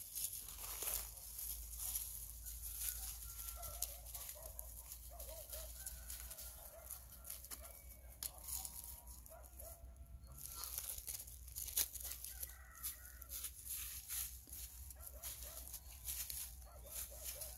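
Dry leaf litter rustling and crackling as two cats wrestle on it, with short, repeated animal calls in the background.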